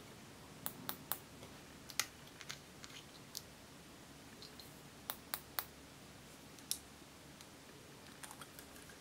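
Fingernails and small plastic cosmetic containers, a glitter jar and a lipstick tube, clicking and tapping as they are handled: scattered sharp clicks in small clusters over a quiet room.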